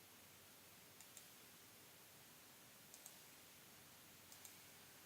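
Computer mouse clicking faintly: three quick pairs of clicks about a second and a half apart, over a low hiss.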